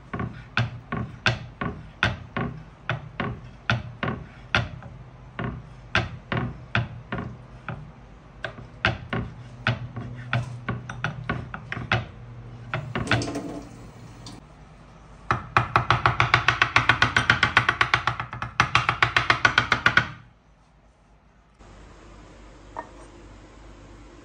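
Kitchen knife chopping roasted red peppers on a wooden cutting board: sharp knocks about two or three a second, then a run of much faster chopping for about five seconds past the middle that stops suddenly.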